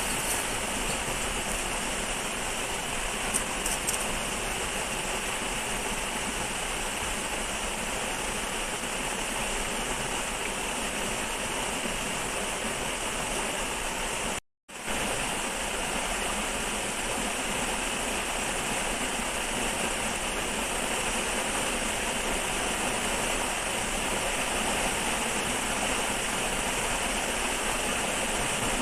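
Steady rush of flowing river water, with a few light knocks about three seconds in. The sound cuts out completely for a moment about halfway through.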